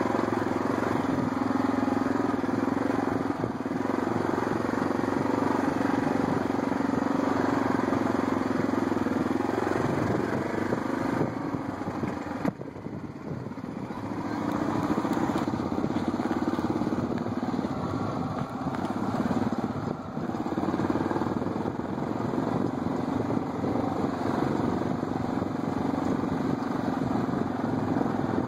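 ATV engine running steadily under way. It eases off briefly about twelve seconds in, then picks up again.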